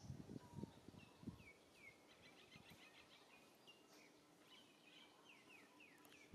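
Faint birdsong in the trees: a string of short, high, downward-sliding chirps repeated every half second or so, with a quick run of notes near the middle. A few soft low thumps come in the first second or so.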